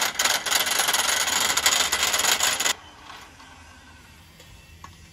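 Large pneumatic impact wrench hammering on an excavator track shoe bolt, a fast dense rattle that cuts off suddenly a little under three seconds in.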